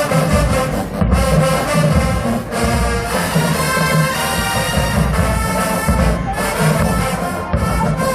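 Marching band brass section playing loudly, horns sounding over a steady low beat.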